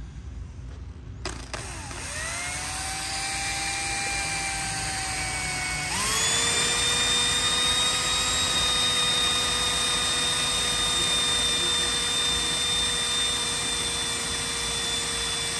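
Drill spinning a rubber valve stem against a painted motorcycle saddlebag, rubbing off leftover reflector adhesive. The motor whine starts about a second in and rises to a steady speed. About six seconds in it shifts pitch and gets louder, then runs steadily.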